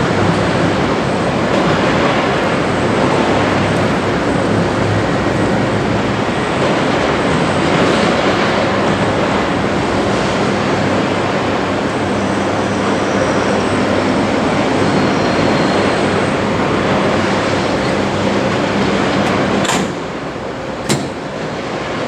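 Steady, loud rumble of passing vehicles with a low hum under it. It drops suddenly about 20 seconds in, with a sharp click then and another about a second later.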